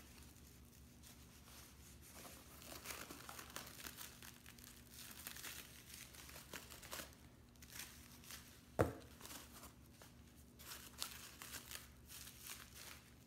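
Foam packing sheets rustling and crinkling as gloved hands pull them out of a cardboard box, in irregular faint bursts. One short sharp knock about nine seconds in.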